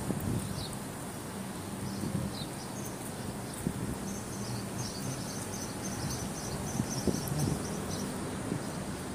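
Quiet street ambience: a steady low hum of distant traffic, with a run of quick, high-pitched chirps from about four to eight seconds in.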